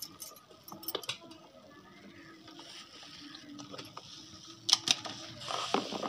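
Hard plastic toy animals clicking and knocking against each other while being handled in soapy water, with the wet squish of foam being worked by hand. The two loudest knocks come close together about three-quarters of the way through.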